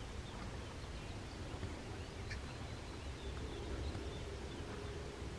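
Quiet outdoor ambience heard from inside a hunting blind: a steady low rumble with faint high chirps, a soft click about two seconds in, and a faint low hum from about three seconds on.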